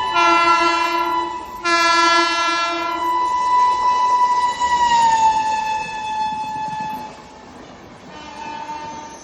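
WAP-7 electric locomotive's horn sounding shrill long blasts: two two-tone blasts, then a held high note whose pitch drops about five seconds in as the locomotive runs past, then a short final blast near the end. Quieter train running noise underneath once the horn fades.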